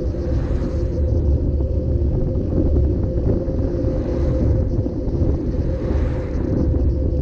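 Steady low wind rumble on a bicycle-mounted action camera riding along a road, with tyre and road noise. Oncoming cars swell past about half a second in, at about four seconds, and at about six seconds.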